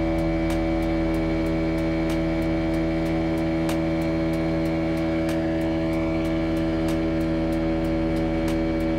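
Small boat outboard motor running steadily at cruising speed, a constant drone with light ticks about three times a second.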